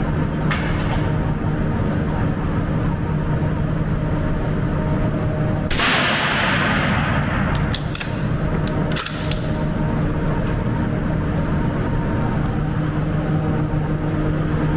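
A suppressed Victrix Gladio V .308 bolt-action rifle fires once about six seconds in, the shot ringing off over a second or so in the indoor range. The bolt is then worked with several sharp metallic clicks, with a steady low hum underneath throughout.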